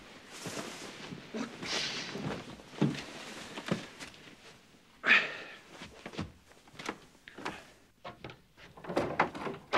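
Bedclothes rustling and scattered knocks and clicks as a man gets out of bed and moves about, with a louder sudden rustle about five seconds in.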